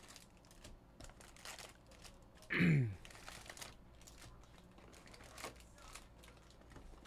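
Foil card packs crinkling and a cardboard hobby box rustling as the packs are pulled out, with scattered light clicks and taps. About two and a half seconds in, one brief, louder sound falls in pitch.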